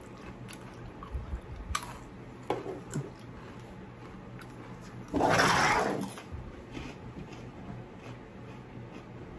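Close-up eating sounds: a few soft mouth clicks in the first few seconds, then, about five seconds in, a loud liquid rush lasting about a second.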